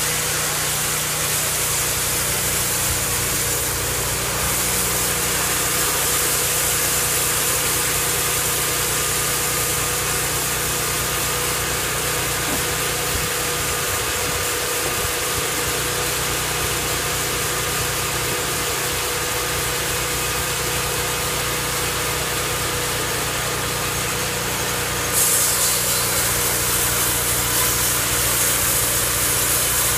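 Portable sawmill running, its engine holding a steady drone under a high hiss from the saw. About 25 seconds in, the hiss grows louder and stays up.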